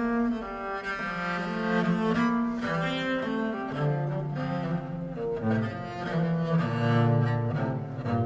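Solo bass viol (viola da gamba) played with a bow: a line of bowed notes that moves down into the instrument's low register from about four seconds in.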